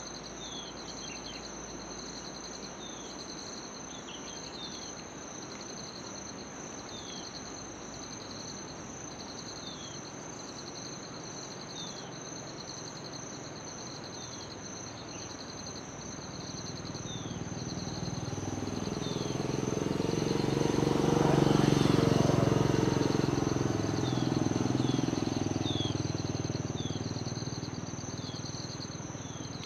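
Insects trilling steadily in high, pulsing tones, with short falling chirps every second or two. Past the middle, a motor vehicle passes, growing louder to a peak about two-thirds of the way through and then fading.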